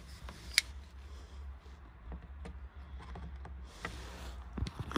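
Handling noise from vernier calipers and the camera while measuring on a vehicle floor pan: a sharp click about half a second in, then a few fainter clicks and taps, and a soft low thump near the end.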